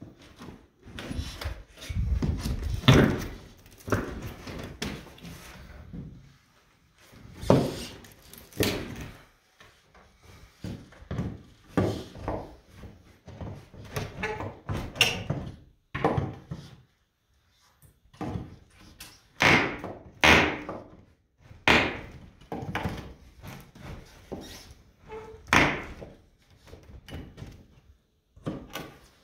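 A hammer knocking and working at wooden panel boards and framing, loosening a wall panel. The knocks are irregular, with scraping between them and short pauses.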